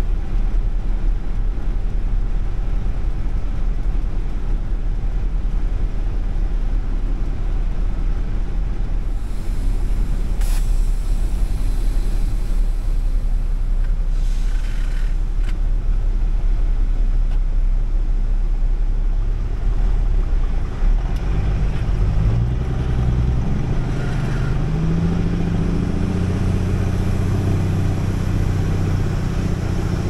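Semi truck's diesel engine idling, heard from inside the cab as a steady low rumble; about 21 seconds in the engine picks up and the truck pulls forward.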